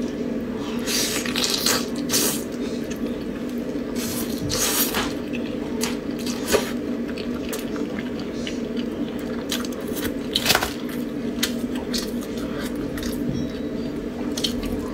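Close-up eating of braised chicken drumsticks: wet chewing, lip smacks and sticky mouth clicks as meat is bitten and chewed, over a steady low hum.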